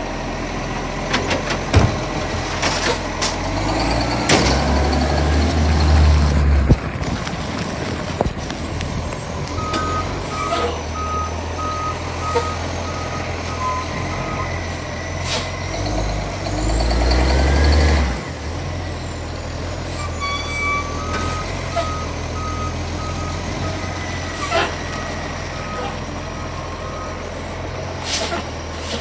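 Garbage truck's diesel engine running, revving up twice with a rising whine. Air-brake hisses and a regular electronic warning beeper sound for several seconds each time, twice.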